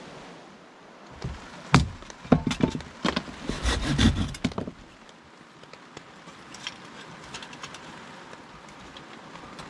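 Hatchet splitting kindling on a wooden chopping block: a quick run of sharp chops and knocks over a couple of seconds, then faint clicks of sticks against a small metal wood stove, over a steady hiss of light rain and water.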